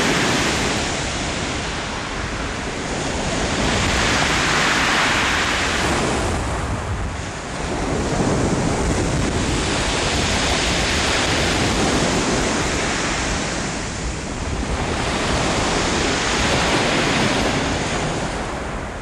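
Sea surf breaking and washing up a shingle beach, swelling and fading about every four to five seconds, with wind rumbling on the microphone.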